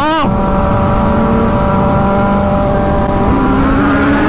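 Inline-four sport motorcycle engine given a quick rev right at the start, then held at steady revs and climbing slowly again from about three seconds in, as the bikes ride into a tunnel.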